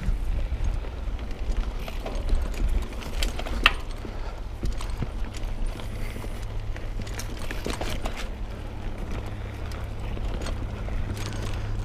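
Mountain bike rolling over a rough, rocky and rooty trail: a steady low rumble with scattered clicks, knocks and rattles from the bike, the sharpest knock a little under four seconds in.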